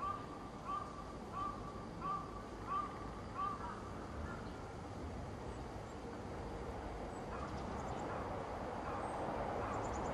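A crow cawing about six times in an even series over the first three and a half seconds, then the rumble of an electric commuter train growing louder as it runs past, with faint high squeaks near the end.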